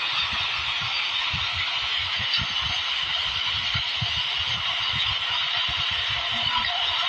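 Steady machinery and airflow noise inside a freighter's cargo deck, with irregular low thuds and rattles from cargo being handled on the roller floor.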